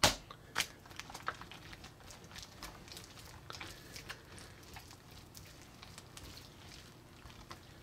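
Wet, sticky clicks and squelches of a hand slapping, pressing and smearing chunky chocolate-milk slime on a glass surface, with a sharp smack at the very start and then an irregular run of small smacks and crackles.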